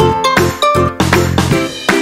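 Background music: a bright, tinkling melody of quick struck notes, about three a second, over a bass line.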